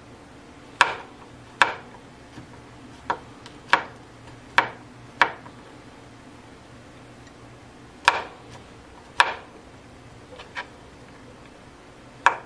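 Kitchen knife chopping dried shiitake mushrooms on a cutting board: about ten sharp knocks of the blade on the board at uneven intervals, with a pause of a few seconds midway.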